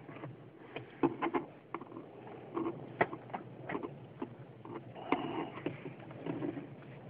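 A metal U-clip and hand tools clicking and scraping against a door handle as the clip is worked onto the handle's splines, in irregular small taps and scrapes with a few sharper clicks about a second, three seconds and five seconds in.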